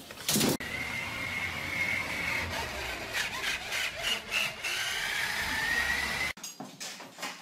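A thump in the first second, then a motorised toy dump truck's small electric motor whining steadily as it drives, its pitch wandering up and down, until it cuts off suddenly about six seconds in.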